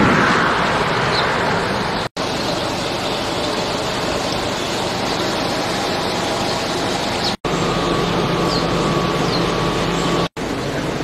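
Steady outdoor rushing noise, cut off for an instant three times. Between the second and third breaks a steady hum sounds under it.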